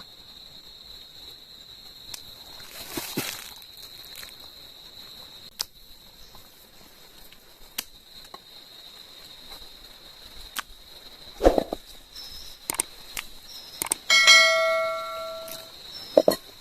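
Scattered knocks of camp work, then a metal object struck once, ringing with a bell-like tone that dies away over about a second and a half. A steady high insect drone runs underneath.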